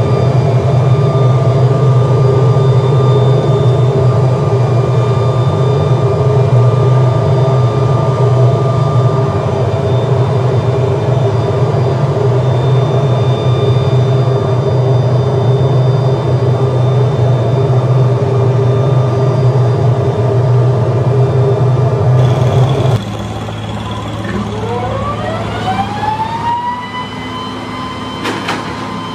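Steady loud drone of foundry machinery. After a sudden cut to a quieter sound, an electric motor spins up with a smoothly rising whine that then holds steady, with a few sharp clicks near the end.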